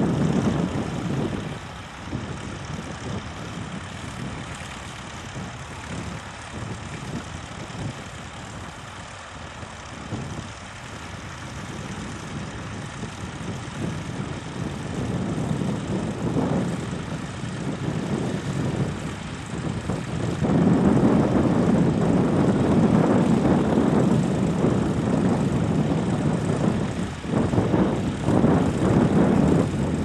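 Vintage tractor engines running steadily under load as they pull ploughs across the field. They get noticeably louder about two-thirds of the way through as a tractor works close by.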